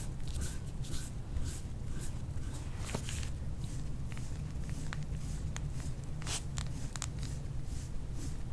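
Soft-tissue strokes rubbing and scraping over skin in a steady rhythm, about two a second, with a few short sharp clicks between them. The treatment is the kind that leaves redness and petechiae.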